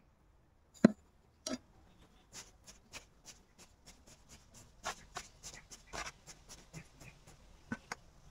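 Gloved hands pressing dry rice-hull potting mix down around a rubber plant cutting in a small plastic pot: a run of short, crunching rustles, about three or four a second. Two sharp knocks come about a second in, the first the loudest sound.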